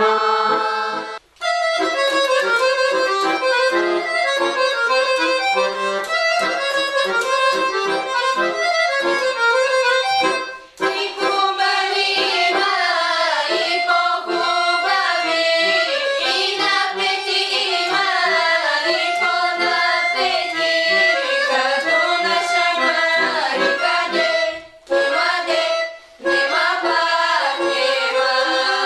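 Instrumental background music with a busy, moving melody, broken by short gaps about a second in, near eleven seconds in, and twice near the end.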